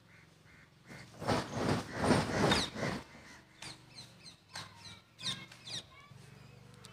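Harsh animal calls: a loud, rapid run of rasping cries for about two seconds starting a second in, followed by scattered shorter calls.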